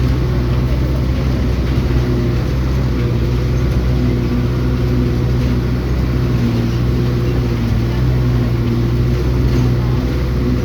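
Vehicle engine running at a steady speed, a constant low hum with a few held tones above it.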